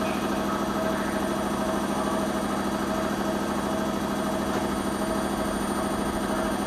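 Steady machinery hum with a constant thin high whine above it, unchanging throughout.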